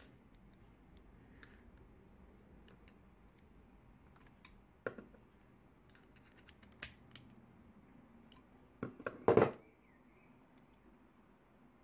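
Scattered small metal clicks of needle-nose pliers gripping and kinking a thin spring-steel wire. About nine seconds in there is a louder clack as a pair of pliers is set down on the wooden tabletop.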